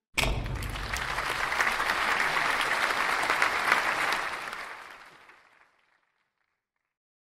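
Arena audience applauding, starting abruptly and fading out after about five seconds.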